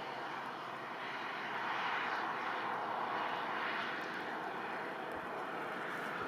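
High wind roaring steadily, swelling and easing every couple of seconds in gusts.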